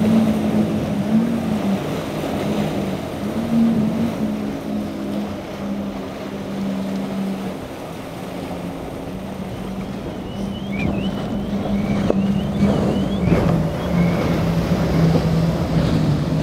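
Outboard engines of center-console boats running hard through choppy inlet waves, a steady drone whose pitch dips and rises a few times. Wind buffets the microphone over the rush of spray and surf.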